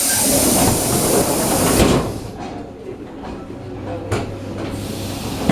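ED9M electric train heard from inside a carriage: a loud hiss of compressed air for about two seconds that ends in a knock, then the car running with a steady low hum and a couple of single knocks.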